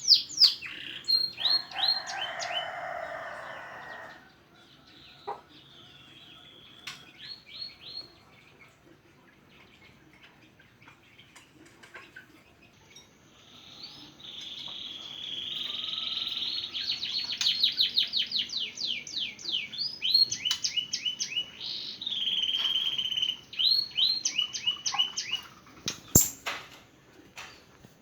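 Songbird singing in bursts of fast, rising whistled notes and rapid trills, loudest through the second half. A harsh rasping sound comes about a second in, and a single sharp click sounds near the end.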